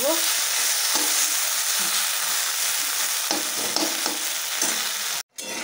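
Okra and potato pieces sizzling in oil in a metal wok, stirred with a metal spatula that scrapes the pan. The sizzle stops abruptly near the end.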